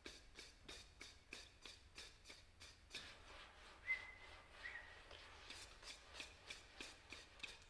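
Faint, evenly spaced taps or clicks of fingers on tabletops, about four a second, which thin out midway and pick up again near the end. Two short high-pitched tones sound briefly about four seconds in.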